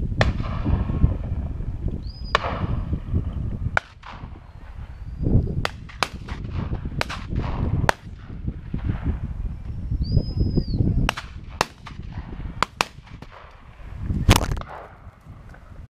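Shotgun shots at a pheasant drive, a dozen or more reports spread irregularly, some sharp and close, others fainter and farther off, over a low rumble of wind on the microphone. The sound cuts off abruptly at the very end.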